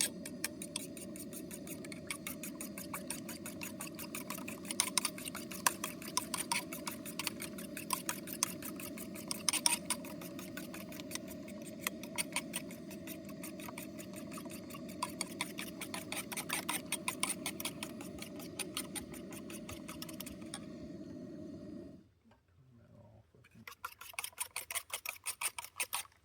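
A fork or utensil beating eggs in a bowl, a fast, fairly regular run of light clicks. Under it a steady low hum cuts off near the end while the clicking goes on.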